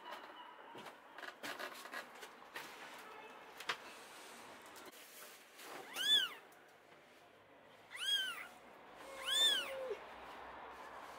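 Newborn grey kitten mewing: three short, high-pitched cries, each rising and then falling in pitch, spaced about a second and a half to two seconds apart in the second half. Before them there are only faint clicks and rustles.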